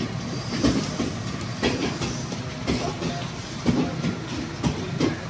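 A motor-driven band saw blade machine running with a steady hum while the steel blade strip travels through its rollers, with a knock or clack about once a second.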